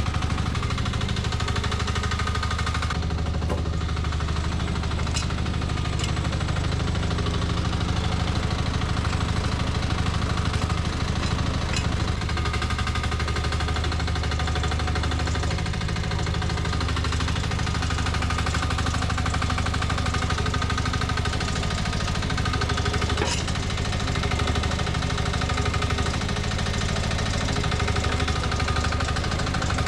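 Small 1-ton mini excavator engine running steadily under work, with a few sharp knocks scattered through.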